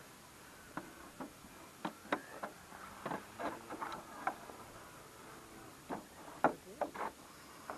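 Irregular light clicks and knocks from a foam and 3D-printed RC aircraft's airframe being handled on the ground, its motors stopped. They come in two clusters, one about a second in and one near the end.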